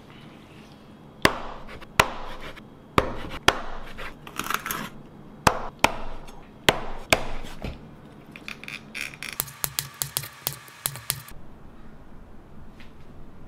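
Cleaver chopping through a filleted striped bass frame on a wooden cutting board, cutting it into pieces. About eight hard chops, some in quick pairs, come in the first seven seconds, followed by a quicker run of lighter knocks.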